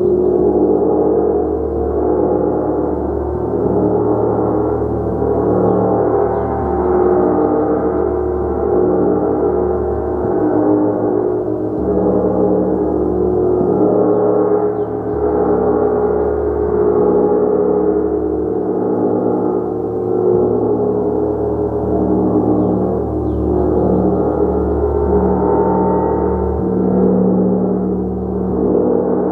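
A gong played continuously, a dense wash of overlapping sustained tones that swells and eases gently every two to three seconds, with no single sharp strikes standing out.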